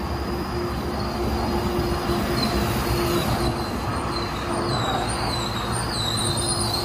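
Metrolink commuter train's bi-level passenger cars rolling past close by with a steady rumble. A high, wavering wheel squeal grows from about halfway through as the wheels take the curve.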